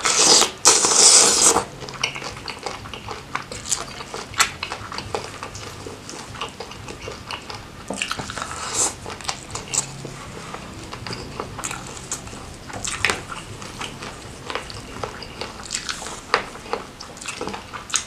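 Close-miked eating of crab and shrimp in Padang sauce: biting, crunching and chewing with wet mouth sounds. A loud crackling crunch comes in the first second and a half, followed by many smaller clicks and chews.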